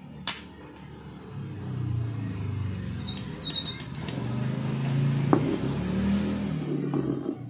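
A motor vehicle engine running, growing louder after a second or so and shifting in pitch as it goes, with a few light metallic clicks about three to four seconds in.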